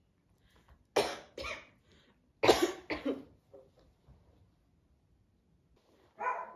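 Two women coughing in a play-acted choking fit: two clusters of harsh coughs about a second and a half apart, then a few weaker coughs that die away.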